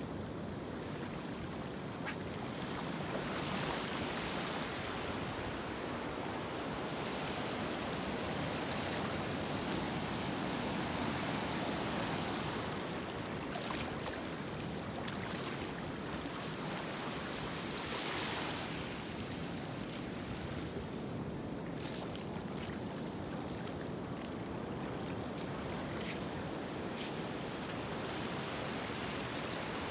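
Sea waves washing and wind blowing, a steady noisy wash that swells and eases every few seconds.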